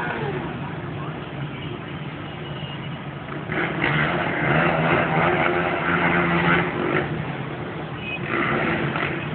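Distant motorcycle and quad engines running, swelling into a louder stretch of revving from about three and a half seconds in until about seven seconds, and again briefly near the end.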